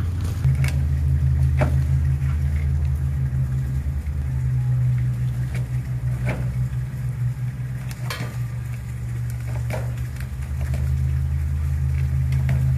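Steady low engine hum, like an idling vehicle engine, with a few short sharp knocks spread through it.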